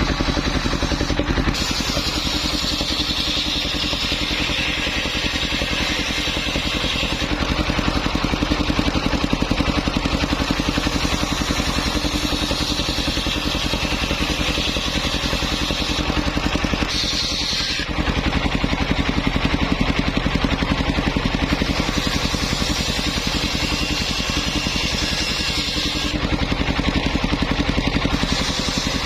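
Engine of a homemade circular saw rig running steadily, with the saw blade cutting through waru wood in stretches: a hissing rasp rises over the engine about a second and a half in, stops after a few seconds, returns briefly, and comes again for several seconds near the end.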